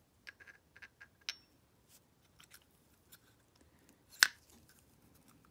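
Light clicks and taps from the CV carburetor's vacuum piston and rubber diaphragm being handled with gloved hands and set into the carburetor body. There is a scatter of faint ticks over the first couple of seconds and one sharper click a little after four seconds in.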